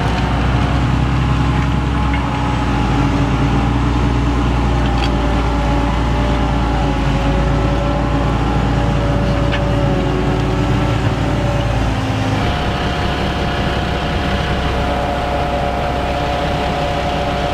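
The 500 hp diesel engine of a Fendt 1050 Vario tractor running steadily under load while pulling a Farmet Softer 11 disc harrow through soil. About twelve seconds in, the deep rumble drops away and a higher engine tone comes forward.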